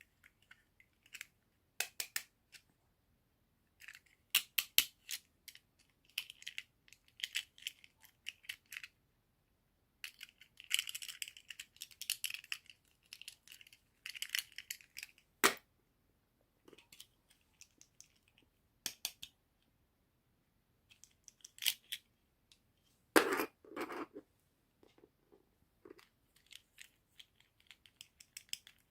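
Hands opening toy packaging: plastic and cardboard crinkling and rustling in short bursts, with scattered sharp clicks and taps. There is a single sharp knock about halfway through and a fuller rustle near the end.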